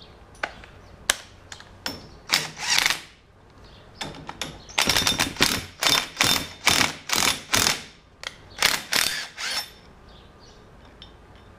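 Cordless drill driving bolts into a race car's front spindle in a series of short pulses, sparse at first and then many in quick succession. The bolts are not going in smoothly because the threads are dirty.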